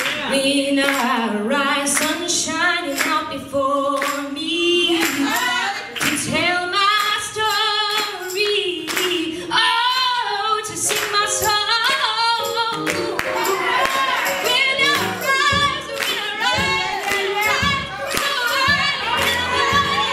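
A woman singing a gospel song solo into a handheld microphone over the church PA, with the congregation clapping along in rhythm. In the second half more voices join in.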